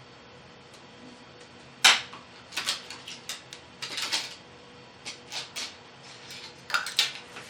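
Irregular light clicks and clattering knocks of small metal tools and laptop parts being handled on a workbench while a MacBook Air is taken apart. The sharpest knock comes about two seconds in.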